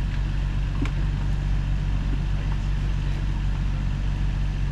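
Toyota Tacoma pickup's engine idling steadily, with a light knock about a second in.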